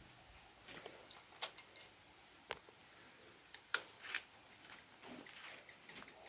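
Faint, irregular sharp clicks and light rattling from the Honda GL100's left handlebar switch gear being worked by hand.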